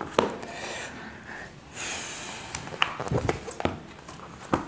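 Paper workbook pages rustling as they are lifted and turned by hand, followed by a few light taps and clicks as the book is handled.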